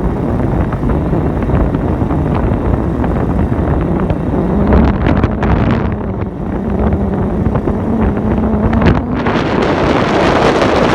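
A vehicle running steadily, a constant engine hum under loud rushing road and wind noise, with wind buffeting the microphone.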